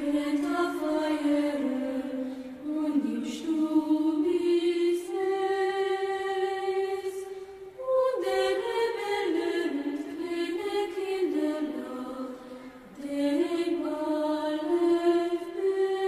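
Vocal music: singing in long, held notes, in phrases of several seconds with short breaks about 8 and 13 seconds in.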